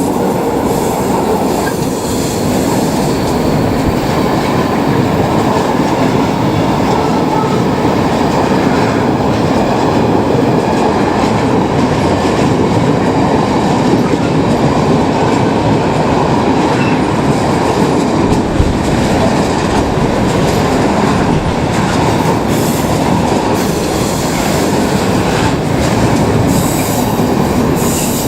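A long train passing close by, its wheels rumbling and clattering steadily over the rails.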